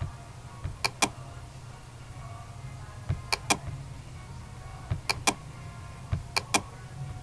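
Computer mouse clicked in quick double clicks, four pairs a second or two apart, each pair led by a softer knock, over a steady low hum.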